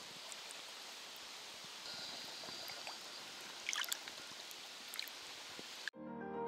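Shallow water lapping and trickling, with a few small splashes about four seconds in. Piano music comes in suddenly near the end.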